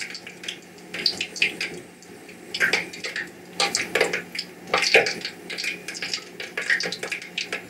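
Rice paper being dipped in a bowl of water and handled at the counter: small irregular splashes, drips and clinks of dishes, with a faint steady hum underneath.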